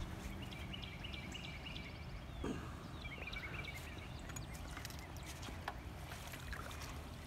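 Steady low outdoor rumble with short chirping bird calls, a run of them in the first two seconds and a falling series about three seconds in.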